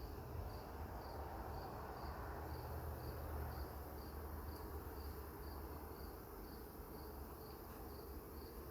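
A cricket chirping steadily at about two chirps a second, over the hum of honeybees flying around the open hive.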